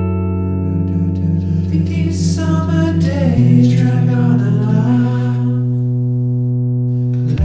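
Background music: held chords with a singing voice over them, the chord changing about three seconds in.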